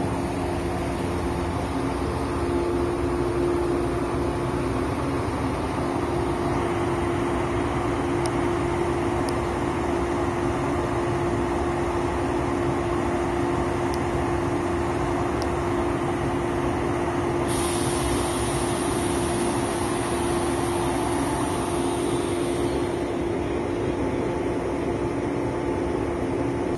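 JR West 103 series electric commuter train standing at the platform, its equipment humming steadily on one tone. About two-thirds of the way through, a high hiss starts suddenly and lasts about five seconds.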